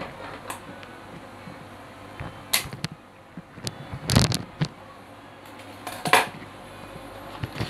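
Hands handling the wired branches of a young serut (Streblus asper) bonsai: a few short rustles and clicks, the loudest about four seconds in and another about six seconds in.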